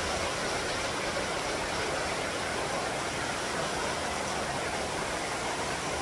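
Steady rushing of a mountain stream running over rocks and ice.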